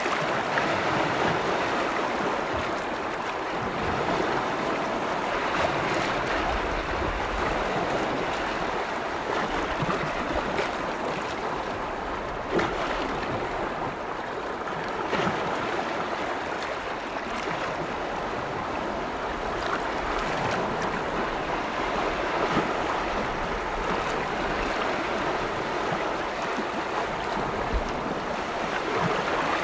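Small lake waves washing and lapping against the shore: a steady rush of water with occasional small splashes.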